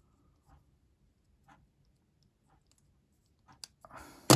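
Faint isolated clicks, then a short run of clicks with a soft rustle and one sharp, loud click near the end.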